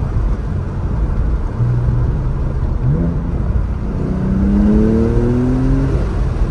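Twin-turbo flat-six of a 2019 Porsche 911 Targa 4S, heard from the open cabin while driving: a quick rising rev blip about three seconds in as the automatic rev-matching blips the throttle on a downshift of the seven-speed manual, then the engine pulls with rising pitch for a couple of seconds before settling.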